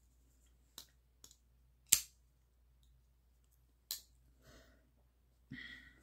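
A few sharp hard clicks and knocks of a pocket knife being handled and set down, the loudest about two seconds in, followed by a soft rustle and a short exhale near the end.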